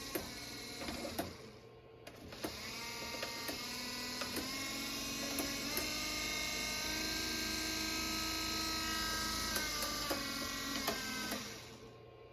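Minn Kota Endura electric trolling motor running on test, a steady whine in several tones with a few light clicks. It starts up about two seconds in, steps up in speed a couple of times, and winds down near the end.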